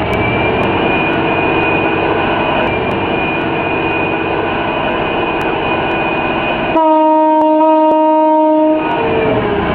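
Liebherr R9800 mining excavator running: a dense, steady machinery noise with a high whine. About seven seconds in, a deep horn sounds steadily for about two seconds and is the loudest event, then the machinery noise returns.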